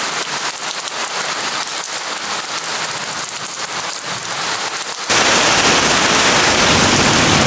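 Heavy thunderstorm rain, a dense patter of drops, changing abruptly about five seconds in to a louder, fuller rush of rain.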